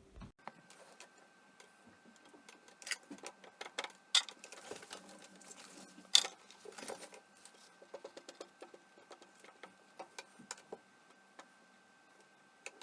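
Irregular light clicks and taps of small items being handled on a work surface, with a few sharper clicks about three, four and six seconds in, over a faint steady high tone.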